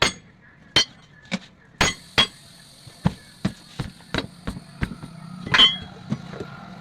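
Hammer blows on metal, irregular at roughly two a second, some with a ringing clink, over a steady low hum.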